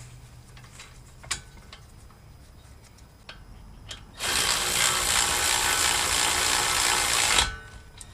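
A few light metal clicks, then a ratchet running a brake caliper bolt in for about three seconds, starting about four seconds in and stopping abruptly.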